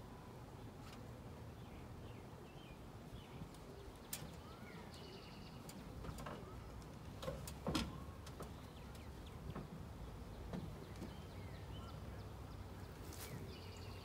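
Birds chirping over a faint low hum, with a few scattered knocks and rustles; the loudest knock comes about eight seconds in.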